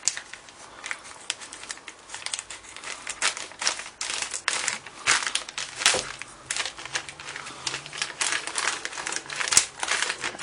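Plastic packaging crinkling and crackling in irregular bursts as a parcel is unwrapped by hand.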